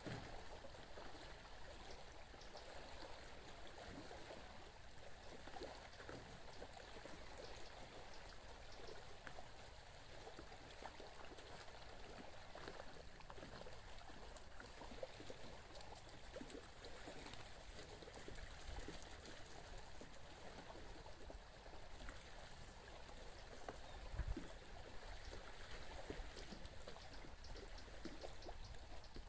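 Small waves lapping faintly and steadily on a sandy lake shore, with a soft thump about 24 seconds in.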